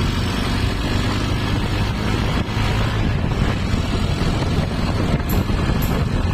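Modified Honda Tiger's single-cylinder engine running steadily through its loud aftermarket exhaust, with heavy wind buffeting on the microphone.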